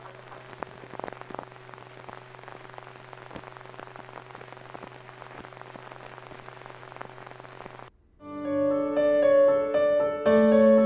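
A steady low hum with scattered crackle and pops, like the soundtrack of an old film print. It cuts off about eight seconds in, and a piano starts playing a melody of held notes over chords.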